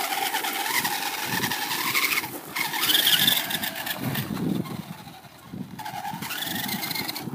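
A small motor whining, its pitch rising and falling as it speeds up and slows, easing off for a couple of seconds about four seconds in.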